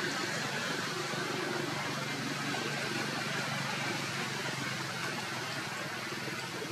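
Steady background hiss with a faint low hum, no distinct calls or impacts.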